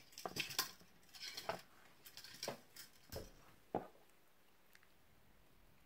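Light metallic clicks and clinks from handling silver-plated copper jewellery wire and small hand tools on a work surface. They come irregularly for about four seconds, then stop.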